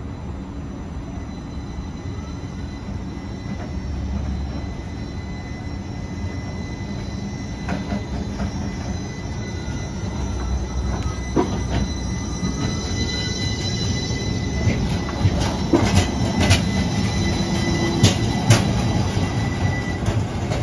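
DC Streetcar tram approaching and passing close by, its low rumble growing louder, with a thin steady wheel squeal. In the last few seconds, sharp clicks and clacks of the wheels over the rails.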